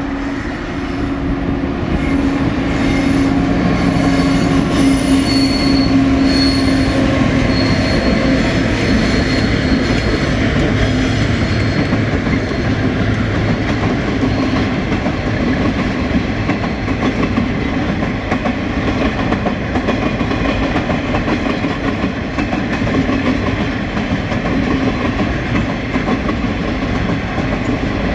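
TasRail diesel-electric locomotives led by TR07 passing with a steady engine drone that fades after about twelve seconds. A long train of empty log wagons follows, rolling by with wheels clattering over the track, and a high wheel squeal comes and goes during the first half.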